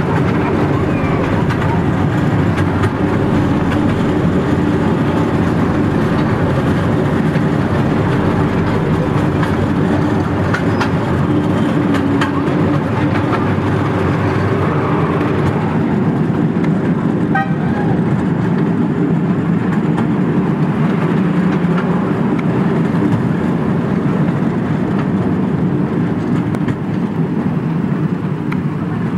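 Small ride-on park train rolling along its narrow-gauge track: a steady rumble and rattle of the wheels and cars, at first inside a tunnel, then out in the open.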